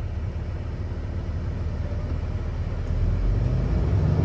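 Hino L6 truck's diesel engine idling in neutral, heard from inside the cab, just after being started. About three seconds in, the engine speeds up slightly and gets a little louder.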